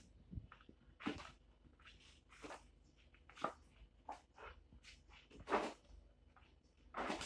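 Heavy vinyl wallpaper sample pages being turned by hand in a sample book: a string of stiff swishes and flops, roughly one a second, the loudest about five and a half seconds in and near the end.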